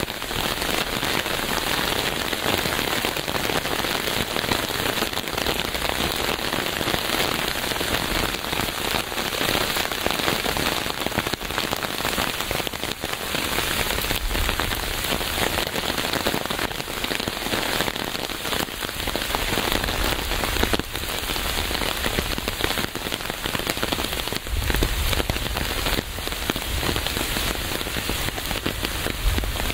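Steady rain falling on a hard surface, a dense patter of many drops at an even strength.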